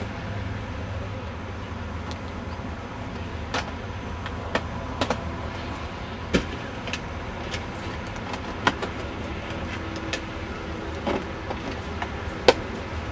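Scattered sharp clicks and knocks over a steady low hum: a crewman closing and latching the engine cowling panels of a parked Sikorsky S-76 helicopter. There are about eight clicks, and the loudest comes near the end.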